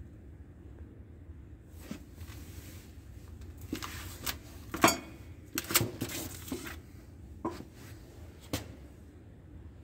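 A series of short, sharp knocks and clicks, irregularly spaced, the loudest about five seconds in, over a steady low hum.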